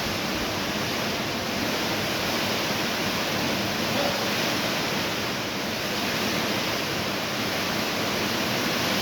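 Steady, even rushing noise at a constant level, with a faint voice briefly about four seconds in.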